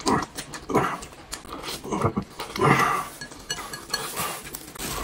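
Close-up eating noises: chewing and sucking meat off the bone in several short bursts, with light clinks of chopsticks against dishes.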